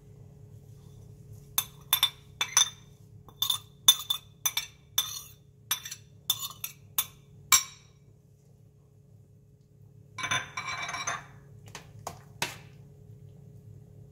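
Metal spoon clinking against a glass bowl, about a dozen sharp ringing taps in quick succession, as chopped parsley is knocked out of it. A few seconds later comes a short scrape and a couple of clicks of the spoon in the stainless steel pot.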